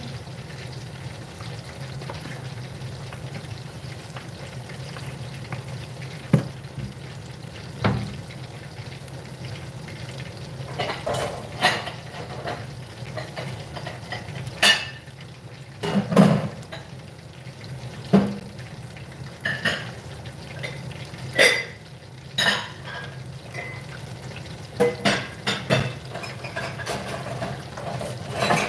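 Chicken thighs deep-frying in hot oil in a saucepan: a steady sizzle with sharp crackles and pops that come more often in the second half. A range-hood exhaust fan hums steadily underneath.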